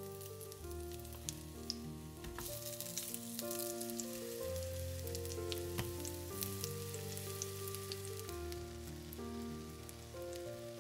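Food sizzling in hot oil in a pan, with scattered small pops, under background music of slow held chords that change every second or two.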